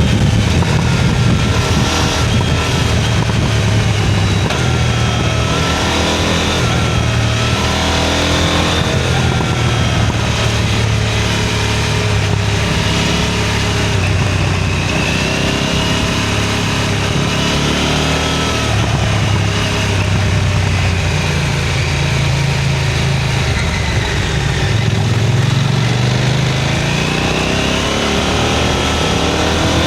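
KTM Duke 990 engine and exhaust under way at an easy pace, its pitch rising and falling with the throttle and gear changes, climbing steeply in a rev-up near the end, over a steady rush of wind noise.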